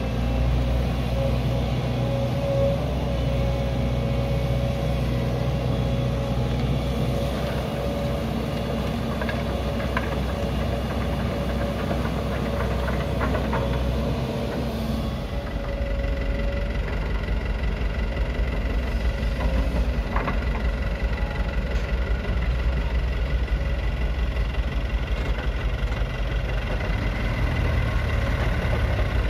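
Diesel engines running steadily. In the first half, a Volvo hydraulic excavator works with a steady whine over its engine. From about halfway, a diesel dump truck's engine idles close by with an even, rapid chugging.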